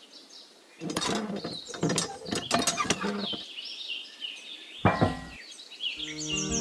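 Clicking and rattling of a small plastic toy hand pump being handled for about two and a half seconds, then a single knock about five seconds in, over faint bird chirps. Music with held notes starts near the end.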